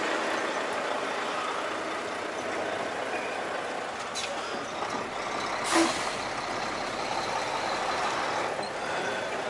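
Semi-truck tractor running while it maneuvers at low speed, heard from inside the cab as a steady noisy rumble, with a brief sharp burst about six seconds in.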